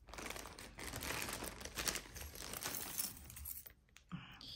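Plastic bag crinkling and pieces of metal costume jewelry clinking as a hand rummages through the pile and lifts one piece out. A steady rustle with many small clicks stops about three and a half seconds in.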